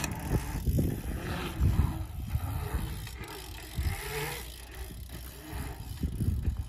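Low, uneven rumble of wind gusting on the microphone, with an e-bike rolling over the asphalt rollers of a pump track.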